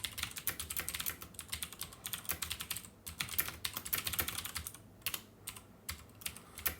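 Fast typing on a computer keyboard during a timed typing test, at about 102 words per minute, in a dense run of keystrokes. It thins out to a few scattered keystrokes over the last two seconds as the test finishes.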